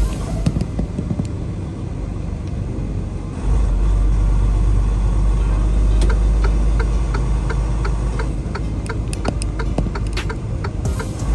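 Semi-truck's diesel engine and road noise heard from inside the cab while driving: a steady low rumble that gets louder about three and a half seconds in, with light ticks through the second half.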